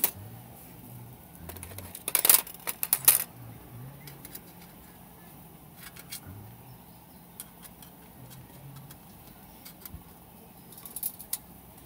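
Light metallic clinks and clattering, as of small metal gear being handled, with a louder burst of clanks about two to three seconds in and another few near the end.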